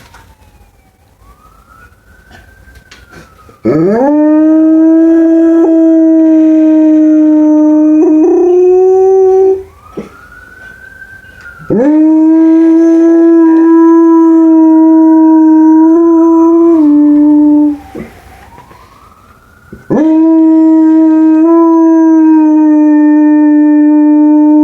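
A pet dog howling along with a police siren: three long, loud, steady howls, each sliding quickly up into its note. Between the howls a police siren can be heard faintly, wailing up and down.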